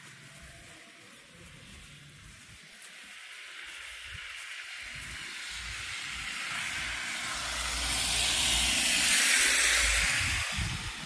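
A vehicle passing on a snowy, slushy street: the hiss of tyres in slush swells slowly, is loudest near the end, then falls away.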